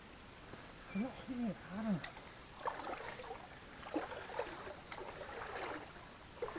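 Three short wordless vocal sounds about a second in, then scattered rustling and scraping of leaves, twigs and bark as someone clambers along a fallen log by a creek.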